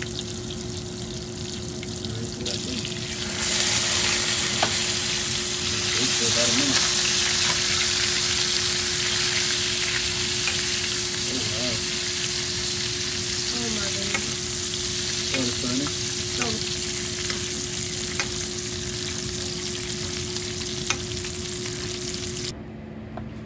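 Steaks searing in butter and garlic in a skillet, sizzling steadily, with a spoon basting and clicking against the pan. The sizzle grows louder a few seconds in and cuts off suddenly near the end, over a steady low hum.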